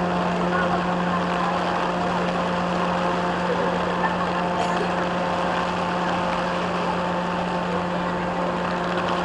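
Heavy rain hissing down onto floodwater, with a steady, unchanging engine hum underneath.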